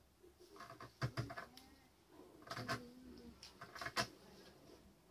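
The point of a steel hand chisel scratching and tapping into a flat black stone as a pattern is engraved, in three short bursts of light scraping strokes about a second apart.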